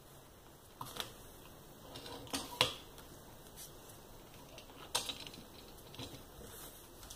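Scattered light clicks and taps as a die-cast toy car and a paintbrush are handled on a tabletop, a few at a time, loudest about two and a half seconds in and again near five seconds.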